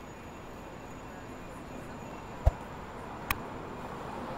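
Steady city street noise with two sharp knocks, the first about two and a half seconds in and the second under a second later.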